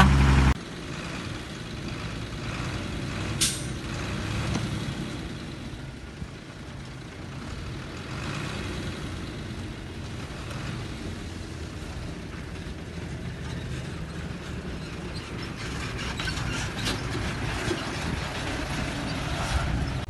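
Diesel dump truck engine running while the tipper bed raises and soil slides out, with a short air hiss about three seconds in. A louder engine cuts off abruptly in the first half second.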